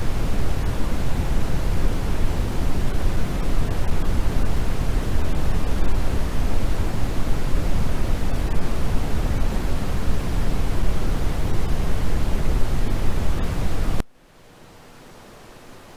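Steady sleep noise, an even hiss with most of its weight in the low end, which cuts off suddenly about 14 seconds in and gives way to a much fainter hiss.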